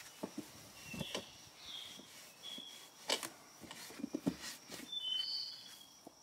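Light knocks and rubbing from handling a partly stripped wooden drawer, a few sharp clicks among them. A few short high bird chirps and a steady high insect trill run underneath.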